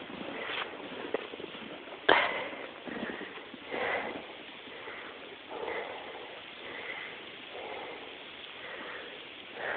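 A person breathing and sniffing close to the microphone, a soft puff about every second, with one sharp click about two seconds in.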